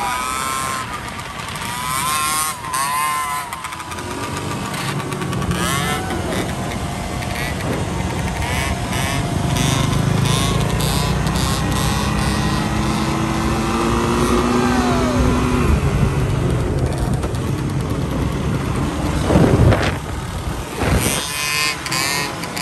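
Two-stroke scooter engines revving high, their pitch rising and falling with the throttle, then holding a long pull as a rider wheelies. There is a brief loud surge near the end.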